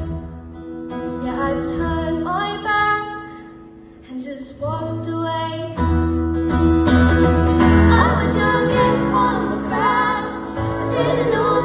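Live song: a female voice sings the melody, accompanied by strummed acoustic guitar and keyboard. About six seconds in, the music swells louder and fuller.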